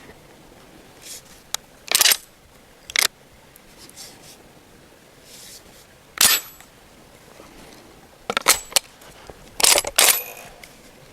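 Sharp metallic clacks and clicks of a Derya MK-12 shotgun being handled, a single clack at about 2, 3 and 6 seconds in, then quick double clacks around 8 and 10 seconds.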